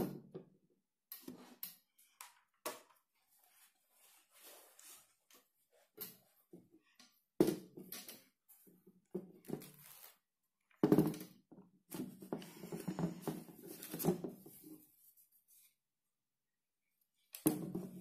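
Scattered plastic clacks, taps and knocks from a small personal blender being handled: the cup and its blade lid twisted, lifted and set down on a table, with the lid being unscrewed near the end. No motor is heard running.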